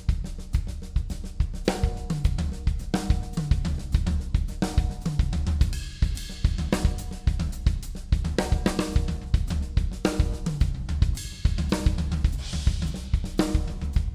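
Acoustic drum kit played as a rapid 16th-note drum-fill pattern of hand strokes on the snare and bass drum kicks (right, left, kick), with accented strokes and cymbal hits mixed in.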